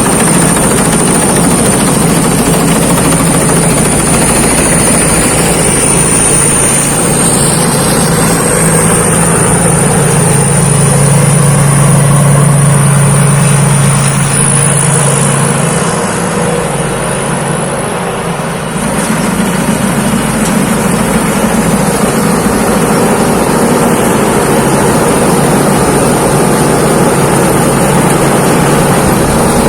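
Thai Seng Yont rice combine harvester running steadily under load while harvesting, a loud engine drone with a thin high whine over it; the sound eases briefly about halfway through.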